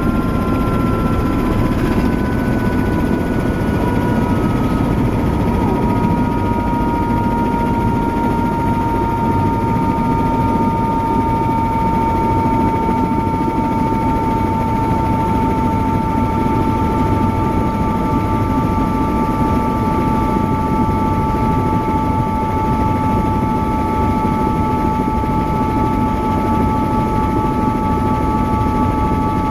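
Helicopter engine and rotor running, a steady low rumble with a high turbine whine that drifts slightly lower.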